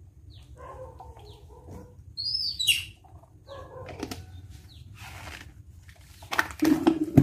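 Baby monkey giving short high-pitched squeaks, the loudest a falling squeal about two seconds in, with softer mid-pitched calls and a louder burst of sound near the end.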